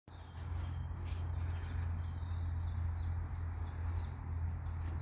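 A small songbird singing a run of short, quickly repeated high chirps over a steady low rumble of outdoor background noise.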